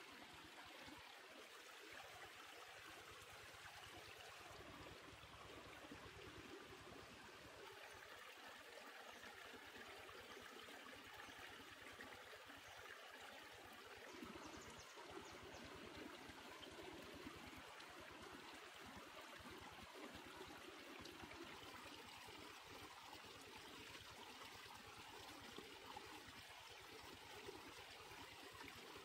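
Near silence with a faint, steady rushing noise like distant running water.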